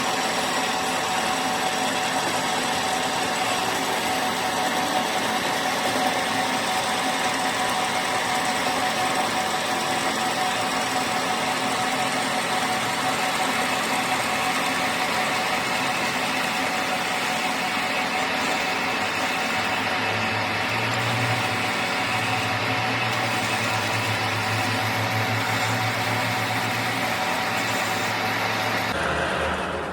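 Steady running of a workshop machine's motor, with constant tones over an even mechanical noise, cutting off sharply about a second before the end.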